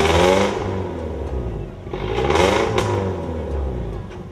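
Off-road 4x4 engine revving in surges, one at the start and another about two and a half seconds in, its pitch climbing and dropping back each time.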